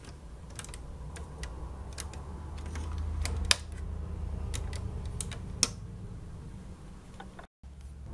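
Lego plastic bricks clicking and clacking as the model tank's hatch panel is handled and lifted, with a low hum underneath. Two sharper clicks stand out, one about halfway through and one a couple of seconds later.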